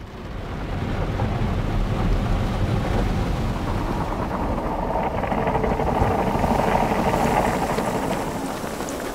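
Water jets of a drive-through car wash spraying over the car, heard from inside the cabin as a steady rushing like heavy rain on the roof and windows. It swells about a second in and is loudest in the middle.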